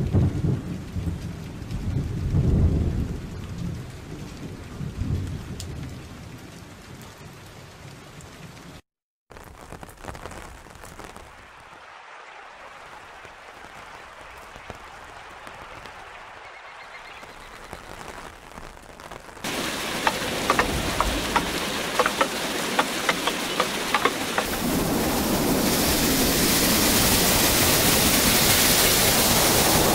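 Rain pattering, with low rolls of thunder in the first few seconds. The sound cuts out briefly about nine seconds in and comes back as softer rain. About twenty seconds in it turns louder with sharp drop ticks, then swells into a steady heavy rush of rain near the end.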